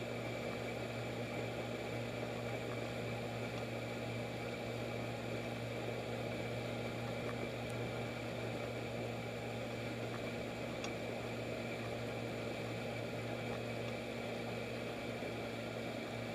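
1971 Evinrude 6 hp two-cylinder two-stroke outboard motor running at a steady cruising throttle, pushing a jon boat along; its pitch holds even with no change in speed.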